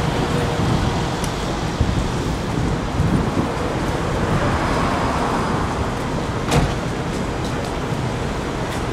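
Steady street traffic noise, with one sharp knock about two-thirds of the way through.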